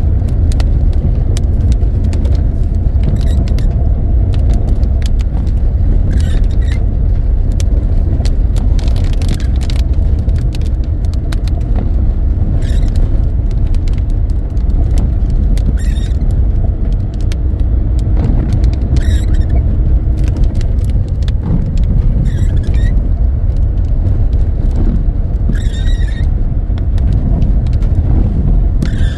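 A car in heavy rain: a loud, steady low rumble with many sharp ticks, and a short squeak about every three seconds.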